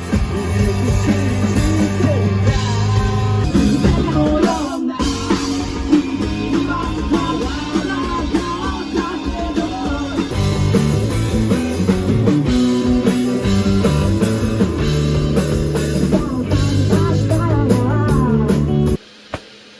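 A rock band playing with a lead singer. It stops abruptly about a second before the end.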